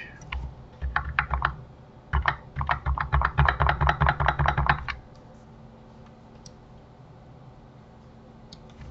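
Keystrokes on a computer keyboard: a short burst of taps about a second in, then a longer fast run of clicks until about five seconds in.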